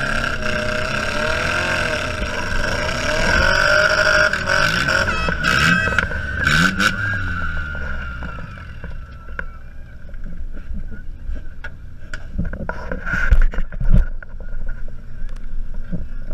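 Demolition derby Honda Civic's engine running and revving up and down inside the stripped cabin, with a steady high whine over it, quietening about halfway through. Two loud bangs near the end.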